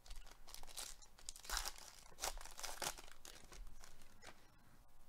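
Foil wrapper of a Panini Chronicles baseball card pack being torn open and crinkled by hand, in irregular crackling rustles that thin out near the end.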